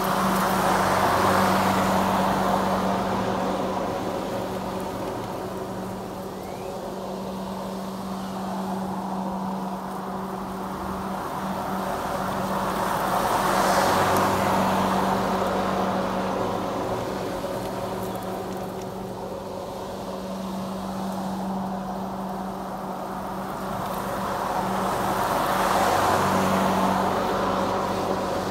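Greenworks 60V battery self-propelled lawn mower with an X blade running and cutting grass: a steady electric motor and blade hum that grows louder three times as the mower passes close, about a second in, around the middle and near the end.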